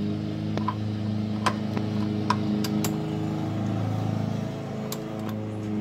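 Socket wrench on a truck's oil pan drain plug as the tight plug is worked loose, giving a few sharp metal clicks at uneven intervals. A steady low hum runs underneath.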